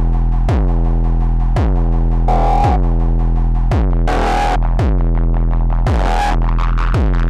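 Electronic music from a Eurorack modular synthesizer: a held bass drone under a kick drum about once a second, each kick falling in pitch, with a few hissy snare-like hits in between.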